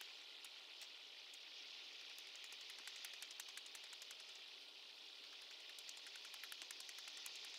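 Near silence: a faint steady hiss, with light, irregular ticks and crackles scattered through the middle.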